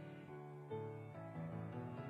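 Church keyboard playing slow, held hymn-style chords that change every half second to a second, played softly as offertory music while the offering is taken.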